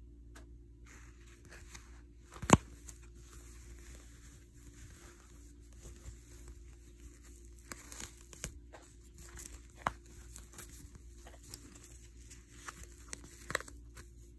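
Crinkling, rustling handling noise with scattered sharp clicks, the loudest a snap about two and a half seconds in, over a low steady hum.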